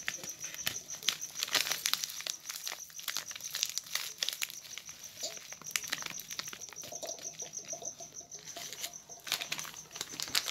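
Plastic Bournvita pouch crinkling and rustling in the hands as it is handled, in many irregular crackles. A steady, pulsing high-pitched chirring runs underneath.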